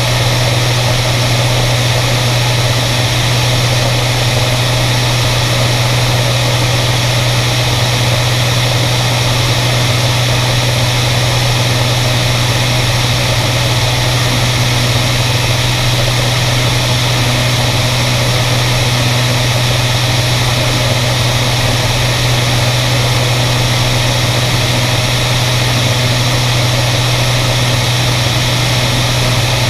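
Propeller airplane's engine droning steadily in cruise flight: a strong, even low hum with a rush of air over it, heard from outside the cabin on the wing.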